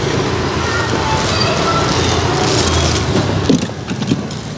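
Road traffic: motor vehicle engines running with a steady low rumble.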